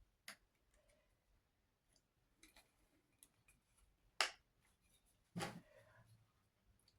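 Faint clicks and taps of small parts being handled as legs are fitted onto a sheep-shaped toilet-paper holder. The loudest tap comes about four seconds in, with another short cluster about a second later.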